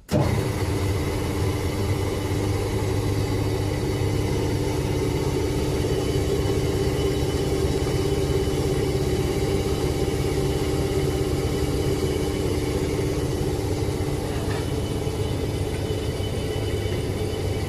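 Vacuum pump of an oil press's vacuum oil filter switching on and running with a steady electric hum and a constant tone; it starts suddenly as the filter system is turned on.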